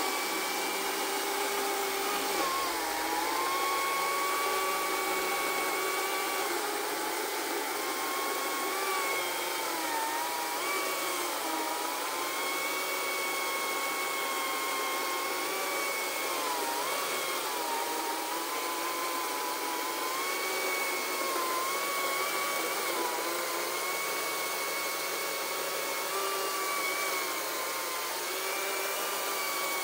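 Greenworks Commercial Optimus OCS800 cordless electric chainsaw pulling a 56-inch bar and chain through a large log: a steady high motor whine with chain noise, its pitch dipping briefly several times as the motor bogs under load.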